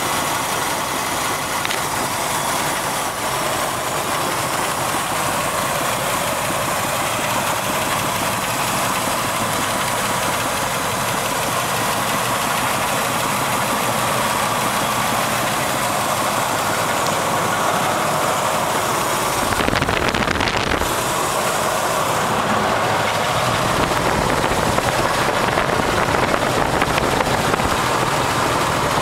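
AMC 360 V8 engine running at idle with a knocking, rattling noise, which the owner suspects may be a rod knock. The sound gets fuller and slightly louder about two-thirds of the way through.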